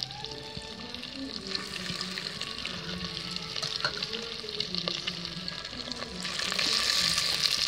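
Marinated Chicken 65 pieces deep-frying in hot oil, a steady sizzle that grows louder about six seconds in.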